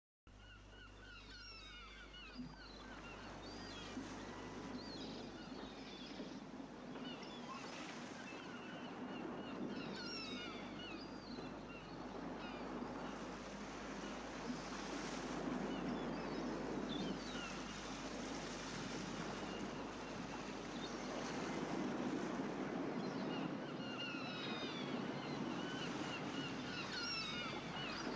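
Surf washing in, swelling and ebbing every few seconds, with many short, high bird chirps over it.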